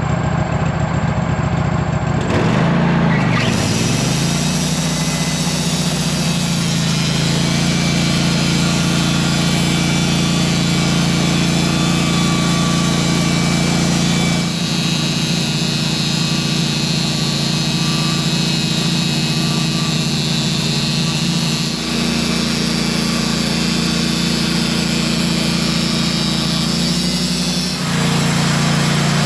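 Wood-Mizer band sawmill running, its engine under steady load as the new band blade cuts along the log. The engine note dips and recovers a few seconds in, then holds steady with a few slight shifts in load.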